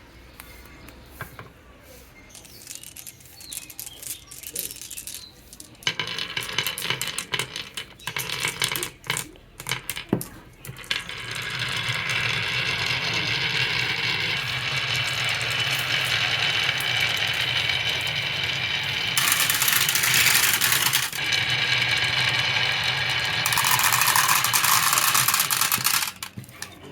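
Marbles clicking and clattering along a marble run, building into a continuous rolling rumble with a faint ringing hum from about eleven seconds in, loudest in two stretches near the end, then stopping abruptly.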